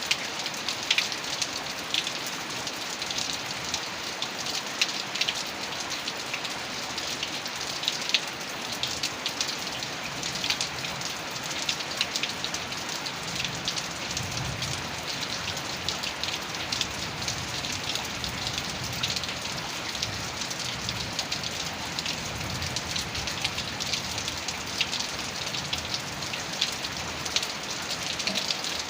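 Heavy rain falling steadily, with dense sharp ticks of individual drops striking a surface. A low rumble swells beneath it about halfway through.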